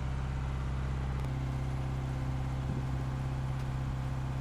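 A sailboat's auxiliary engine running steadily under way, a low, even hum.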